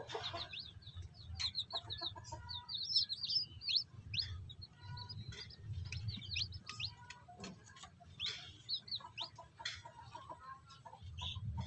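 Newly hatched native chicks peeping over and over in short, high chirps, with the brooding hen's soft, low clucks mixed in now and then.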